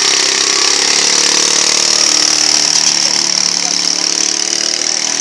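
The 150 cc engine of a homemade two-wheel-drive fat-tyre motorcycle running steadily as the bike rides off, with a high steady whine over the engine note.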